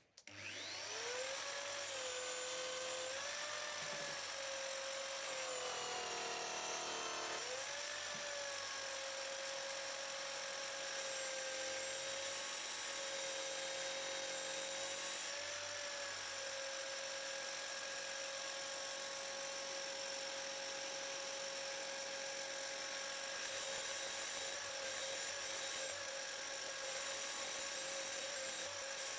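Small high-speed electric rotary tool spinning up and then running with a steady whine. Its pitch sags and wavers for a couple of seconds about six seconds in as it comes under load, in keeping with it grinding or polishing the scratched plexiglass lens of a welding mask.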